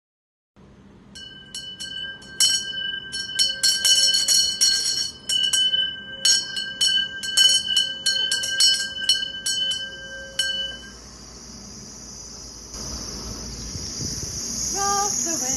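A small bell shaken and struck many times in quick, uneven clusters, every strike ringing with the same bright tones. After about ten seconds the strikes stop and a steady high ringing carries on.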